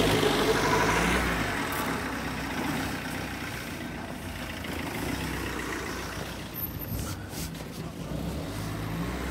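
A motor vehicle's engine idling, a steady low hum that fades out about a second and a half in, over steady outdoor background noise; a low engine hum comes back near the end.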